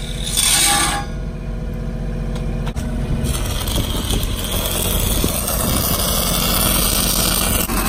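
Stick (shielded metal arc) welding on a steel pipe branch, the arc crackling and spitting, with a Lincoln engine-driven welder running steadily underneath. The arc crackle comes in about three seconds in.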